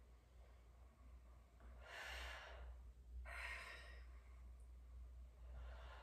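Slow, deep breaths of a yoga breathing exercise, each a soft breathy hiss lasting under a second, three in all. A faint steady low hum lies underneath.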